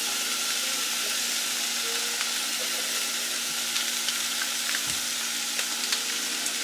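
Ground pork frying in a pot with onion and jalapeño, sizzling steadily with scattered small pops of spatter.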